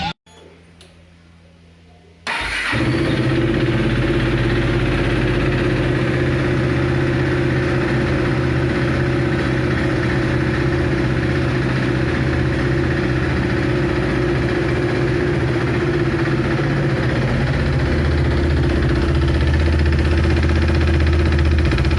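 KTM RC 390's 373 cc single-cylinder engine starting, catching suddenly a little over two seconds in, then idling steadily and growing slightly louder near the end.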